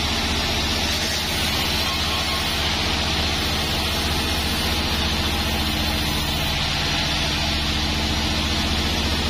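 Band sawmill running steadily while its blade saws a joar log lengthwise: a constant machine drone with the hiss of the cut over it.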